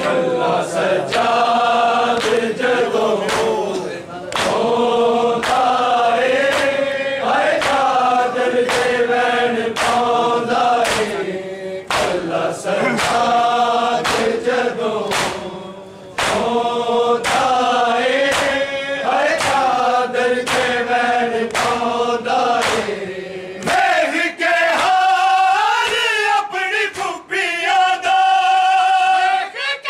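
A group of men chanting a Punjabi noha (Shia mourning lament) together, with steady rhythmic slaps of bare hands on chests (matam) keeping the beat.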